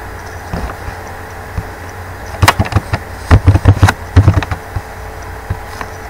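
Computer keyboard being typed on in a quick run of clacks for about two seconds midway, then a couple of single clicks, over a steady low background hum.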